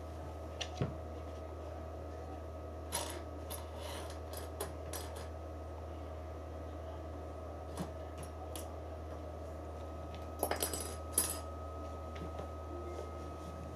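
Scattered light clicks and rattles of small hard objects, coming a few at a time in short clusters, over a steady low hum.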